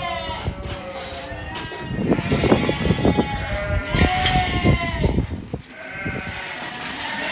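Crowded sheep bleating repeatedly, several calls overlapping, with a few sharp knocks and rattles from the steel pen around the middle.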